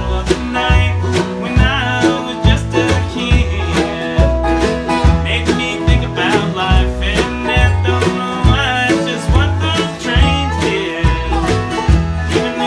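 A country-style song with plucked-string accompaniment and a singing voice over a steady beat.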